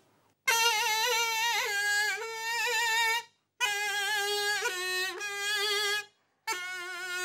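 Qo'shnay, the Uzbek double-pipe cane reed instrument, played solo: a reedy, wavering melody in three phrases, starting about half a second in, with short breaks just after three and six seconds.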